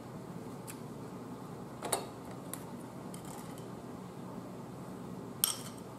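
Cooked blue crab shells clicking and cracking as the crabs are picked apart by hand, two sharper cracks about two seconds in and near the end, over a steady low hiss.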